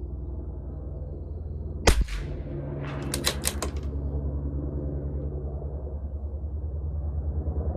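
A single shot from a CZ 457 LRP bolt-action .22 LR rifle firing Eley Tenex Pistol ammunition, about two seconds in. About a second later comes a quick run of four or five metallic clicks as the bolt is worked to chamber the next round, over a steady low hum.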